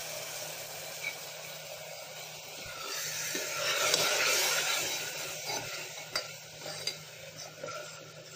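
Tomato purée sizzling in hot oil in a pressure cooker, swelling louder about halfway through. Then a metal spoon stirs it, clicking and scraping against the pot.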